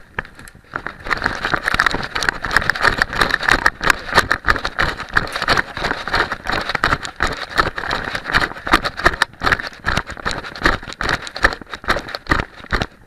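Handling and movement noise on an arm-mounted camera: dense crackling and rustling with rapid small knocks. It starts about a second in and dies down near the end.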